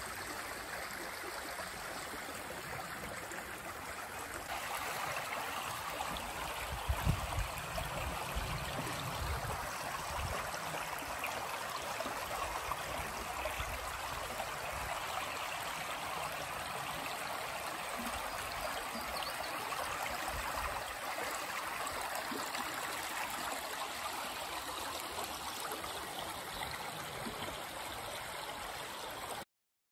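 Small rocky creek babbling steadily over stones and riffles, a little louder about four seconds in. There is a brief low bump about seven seconds in, and the sound cuts off suddenly near the end.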